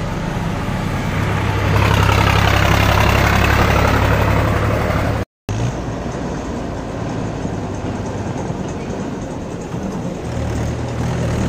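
Diesel farm tractors running under load as they pull trolleys heaped with sugarcane past on the road, with a brief break to silence about five seconds in. Near the end a tractor's engine grows louder as it approaches.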